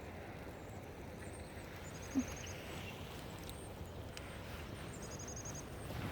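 Small songbirds in the trees giving two short, high, rapid trills a few seconds apart, over a faint steady outdoor background.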